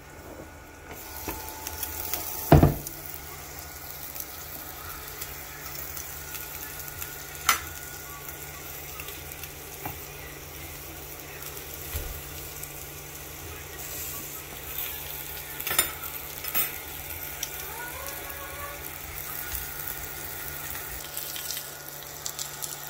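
Steak and hot dogs sizzling on a PowerXL smokeless electric grill over a steady low hum from the grill's fan. A loud knock comes about two and a half seconds in as the glass lid is opened, and a few lighter clicks follow later.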